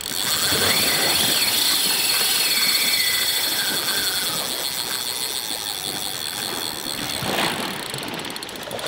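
Spinning reel's drag buzzing as a hooked fish runs and strips line off the spool. Its pitch rises at first, then falls away over a few seconds as the run slows.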